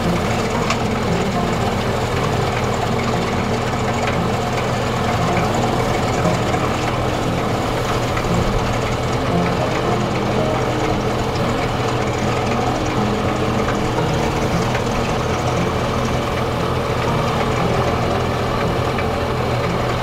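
Heavy diesel truck engine running steadily while the silage trailer unloads chopped forage out of its rear.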